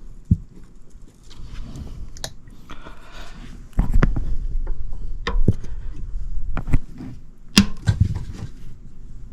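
Scattered knocks, clicks and rustling of hand work on the condensate drain line as a new trap is built, with a steady low rumble coming in about four seconds in.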